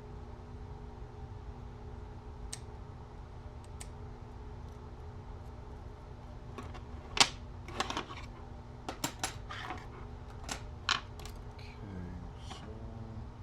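Small hard RC-kit parts and tools being handled during assembly: a run of light clicks and clacks between about six and eleven seconds in, the sharpest about seven seconds in, over a steady low hum.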